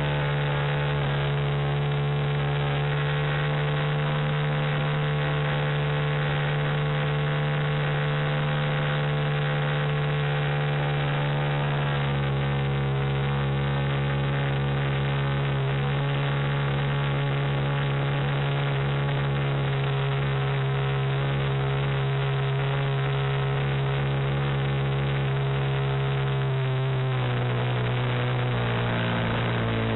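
Glow engine of an RC Bellanca Decathlon model plane running at a steady high pitch in flight. Its pitch rises a little about a second in and drops lower near the end as it is throttled back.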